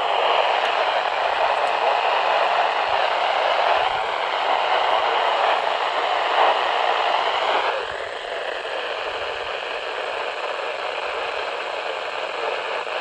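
Weather radio receiver giving out loud hiss and static with no speech, the noise thinning and dropping in level about eight seconds in.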